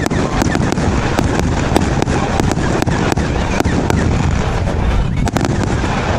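A 1.3G 320-shot compound firework cake firing in rapid succession: a steady run of sharp cracks and bangs, about two to three a second, over a continuous low rumble of bursts.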